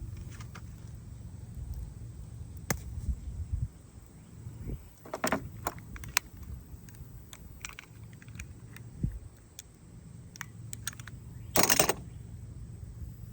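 Scattered metallic clicks and two short scraping bursts, about five seconds in and the loudest near the end, from a hand tool working the end of a car's negative battery cable as its insulation is cut back.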